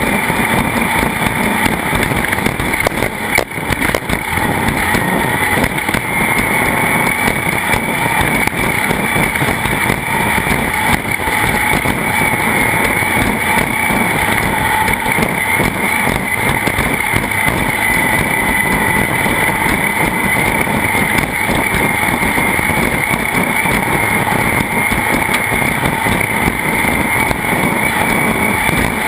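A racing vehicle's engine running steadily at speed under a dense, loud rushing noise, with a brief dip about three and a half seconds in.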